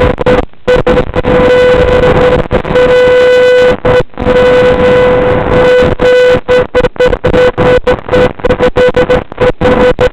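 Loud electronic buzz held at one pitch over hiss, cutting in and out many times in short dropouts, as recorded by FPV video goggles from the analog video receiver's signal.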